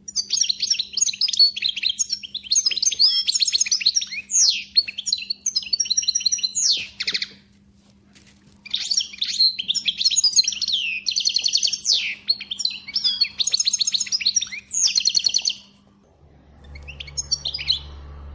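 A songbird singing two long, rapid, warbling phrases of about seven seconds each, separated by a short pause, with a shorter faint phrase near the end. A faint steady hum lies under the song and gives way to a low rumble near the end.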